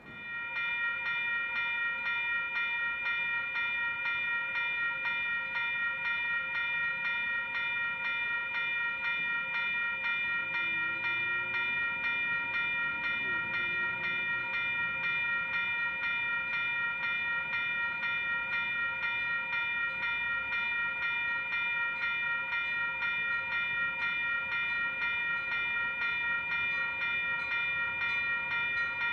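Railroad grade-crossing warning bell ringing in fast, even, repeated dings, about two a second. It starts sharply and keeps a steady pace, the signal that the crossing is activated for an approaching train.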